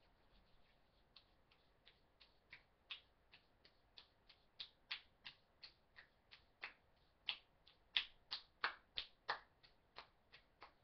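A faint, even run of short, sharp clicks, about three a second, starting about a second in and growing louder and uneven in strength from about four seconds in.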